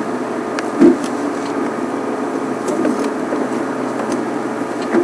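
Game-drive vehicle's engine idling steadily, with one short knock just under a second in.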